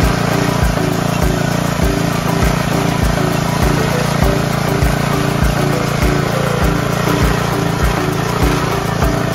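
Small petrol engine of a walk-behind mini tiller running steadily under load as its rotary tines churn dry field soil, with a low knock about every half second.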